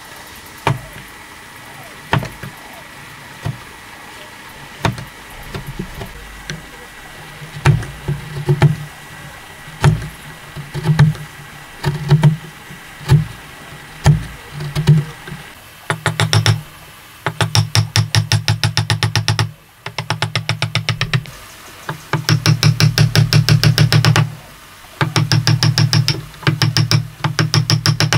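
A wooden mallet striking a chisel into hardwood end grain: single sharp knocks about once a second, then from about halfway on, fast runs of rapid taps in bursts of one to three seconds.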